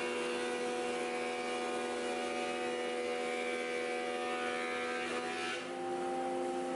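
Thickness planer planing a maple board: the motor hums steadily while a hiss of cutting runs over it. About five and a half seconds in the cutting stops as the board clears the machine, and the hum lifts slightly as the load comes off the motor.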